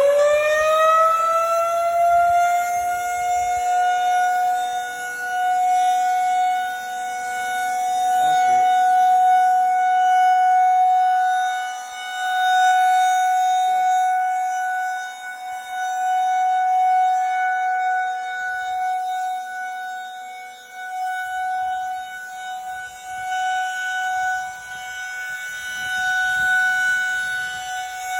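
Federal Signal 2001-SRNB electromechanical outdoor warning siren. It is winding up, its pitch climbing steeply over the first few seconds, then it sounds one steady wail. The wail swells and fades in slow cycles as the rotating siren head sweeps around.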